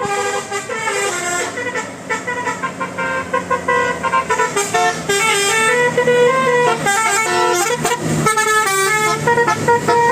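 Bus telolet horn of the basuri type, a multi-tone musical air horn, playing a melody of quick stepped notes, with a short break about eight seconds in.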